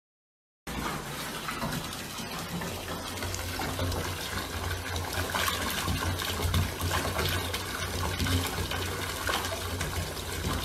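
Bathtub tap running, a stream of water splashing steadily into a filled bath; it starts suddenly under a second in.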